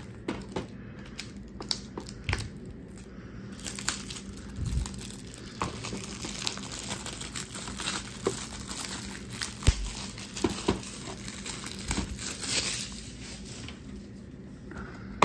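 Plastic shrink wrap being torn and peeled off a DVD case: crinkling and tearing plastic, busiest through the middle stretch, with scattered clicks and knocks from the plastic case being handled.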